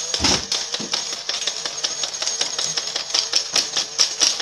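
Nerf N-Strike Elite HyperFire blaster firing full-auto: its battery-driven flywheels whine steadily at a high pitch over a rapid, even stream of clicks as darts are pushed through, about five or six shots a second, emptying a 25-dart magazine.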